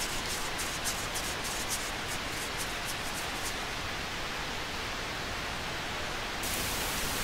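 Loose twine fibres being rubbed and pulled apart between the palms into a tinder bundle for flint and steel, a dry crackly rustle for the first three seconds or so, over a steady rushing hiss that turns brighter near the end.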